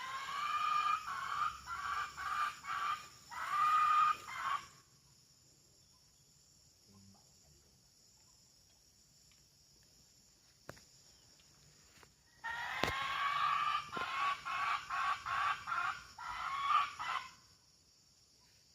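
Imitated red junglefowl hen call used as a lure: two bouts of rapid, repeated cackling notes, each lasting about four to five seconds, starting with a rising note, with a quiet gap of about eight seconds between them.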